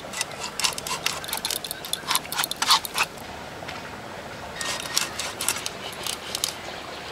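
A katla fish being cut into pieces on a boti blade: quick sharp cracks as the blade bites through the flesh and bone, in two bunches with a short pause between.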